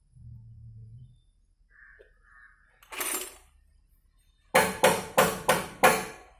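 Steel spanner striking metal on the motorcycle: six quick ringing clinks, about three a second, in the second half. A short scrape comes about three seconds in.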